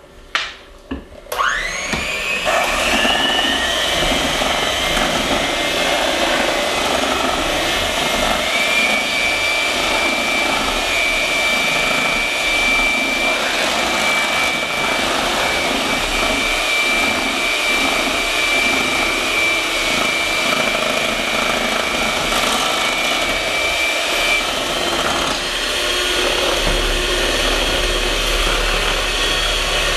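Two electric hand mixers beating cheesecake batter, a steady motor whine. The first starts about a second in, its pitch rising as it comes up to speed.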